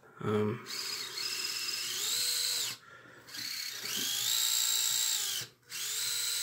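A 180-size brushed electric motor drives the spur gears of a 1/24 Losi Micro Barrage's 3D-printed resin transmission case. It is run in three short bursts, and each whine rises in pitch as the motor speeds up, then drops off as it stops.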